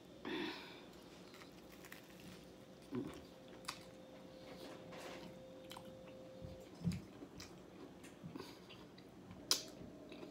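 A person chewing and biting food close to the microphone, with scattered wet mouth noises and a few sharp clicks.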